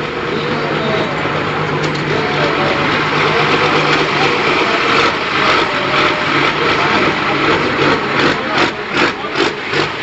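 Large turbocharged engine running at a steady idle. Near the end the sound pulses about three times a second.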